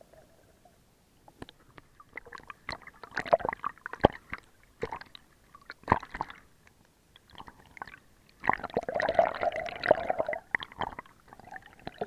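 Water splashing and bubbling right at an action camera as it dips under and breaks the surface while a swimmer kicks with fins, in irregular bursts with a longer busy stretch about two-thirds of the way through.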